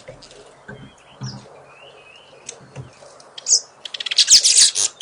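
Wild birds calling: faint whistled, gliding calls at first, then about three and a half seconds in a loud, rapid chattering call of many quick notes.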